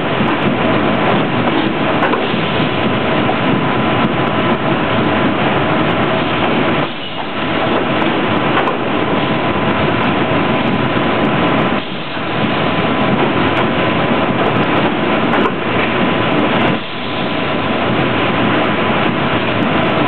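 Steady, loud machinery noise from a corrugated box plant's powered roller conveyor line carrying stacks of flattened boxes, with a faint steady hum running through it. The noise dips briefly three times, about five seconds apart.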